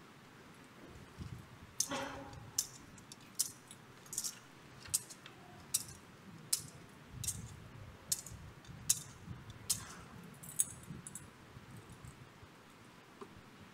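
A metal thurible is swung to incense the Gospel book, its chains and lid clinking about a dozen times at an even pace of a little under one clink a second. The clinks stop about ten seconds in.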